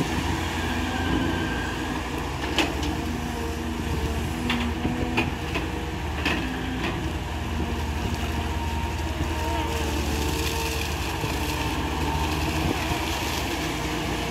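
Caterpillar hydraulic excavator's diesel engine running steadily under digging load, with a few sharp knocks between about two and seven seconds in.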